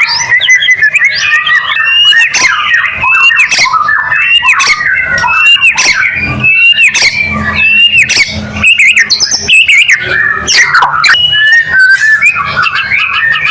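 White-rumped shama (murai batu) singing loudly and without a break: a rapid, varied song of quick whistled and gliding notes mixed with sharp clicking calls.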